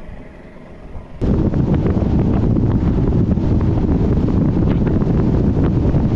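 Heavy wind buffeting the microphone of a bass boat running fast across choppy open water, with the rush of the boat and water beneath. It starts abruptly about a second in, after a quieter stretch.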